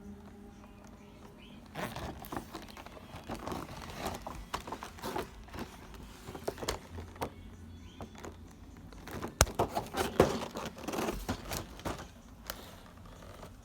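Crinkling and rustling of toy packaging being handled, with irregular clicks and a couple of sharp knocks of plastic parts about two-thirds of the way through.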